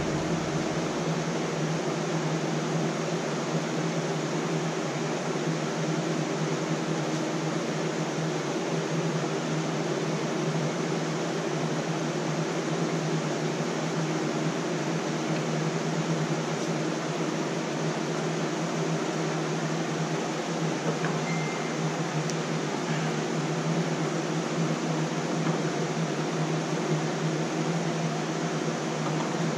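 Steady whir of a running fan with a low hum under it, unchanging throughout.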